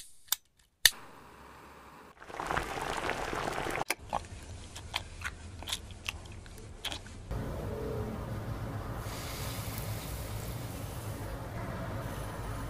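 Gas stove burner being lit: the igniter clicks twice, then the flame catches with a hiss lasting a second or two. After that come light clicks and knocks of kitchen handling, then a steady low rumble through the second half.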